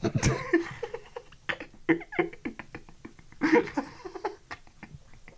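People laughing in short, broken bursts.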